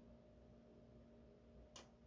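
Near silence with a faint steady hum, and one faint sharp click about three-quarters of the way through: a lock pick working a pin inside an Assa 700 lock.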